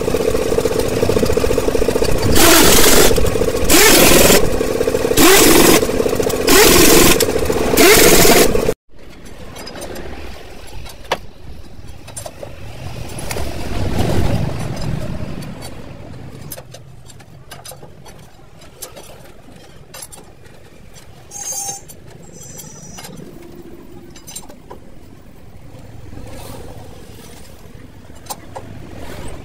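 Pneumatic impact wrench working on truck wheel nuts. It runs with a steady whine and breaks into five bursts of hammering about a second and a half apart, then cuts off abruptly about nine seconds in, leaving only faint scattered knocks.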